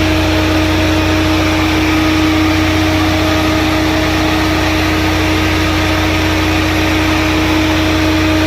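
Volvo-engined 150 kVA diesel generator running at a steady speed: a constant low engine drone with a steady pitched hum above it.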